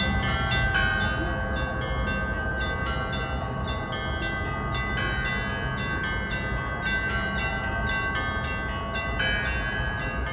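Church bells pealing: several smaller bells struck in a quick, continuous pattern, about three strikes a second, over a deeper bell whose ringing tone is struck again every four seconds or so. A low steady rumble lies underneath.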